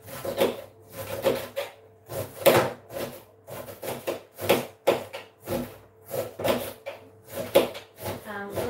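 Kitchen knife chopping cabbage on a cutting board, in a steady rhythm of about two chops a second.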